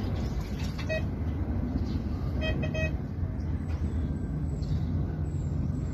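A steady low engine rumble. A short beep comes about a second in, then three quick beeps.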